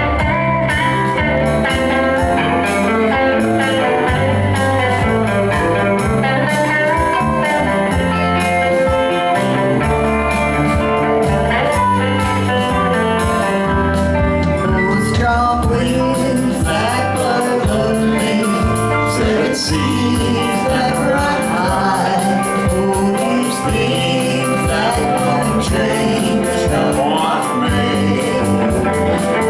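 Country-style song played by a band with guitars, with a voice singing over it in the second half.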